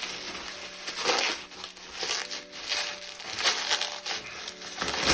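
Packing material being crumpled and pulled away by hand while unwrapping a parcel, in irregular rustling bursts.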